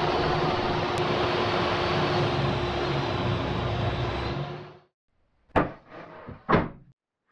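Table saw running at speed with a steady motor hum while a thin sheet panel is fed through the blade. The sound cuts off abruptly about five seconds in, followed by a few short knocks and scrapes as the board is handled.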